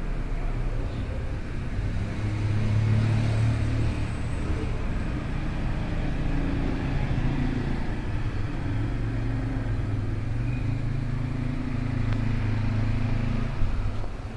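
A low motor hum that swells and eases several times, with a short knock near the end.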